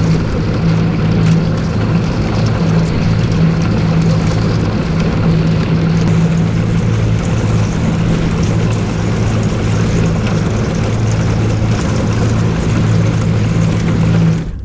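Boat's outboard motor running steadily under way while the hull crashes through a quarter inch of thin lake ice, a continuous crunching, scraping hiss over the engine's hum. It cuts off abruptly near the end.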